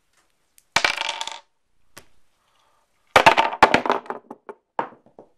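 Stones dropped onto a wooden tabletop, clattering. A short clatter just under a second in and a single tap at about 2 s, then a longer clatter from about 3 s that breaks into a series of fading bounces and rattles as a stone settles.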